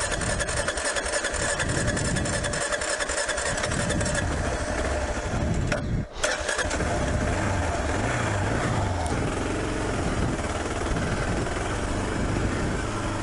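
Adventure motorcycle engine idling with a fast, even firing pulse, then, after a brief break about six seconds in, pulling under load up a steep dirt climb, its revs rising and falling.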